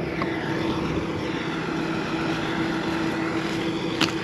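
John Deere 9560R articulated tractor running steadily in the field, pulling a disc tillage implement, with a constant engine drone. A short sharp tick sounds near the end.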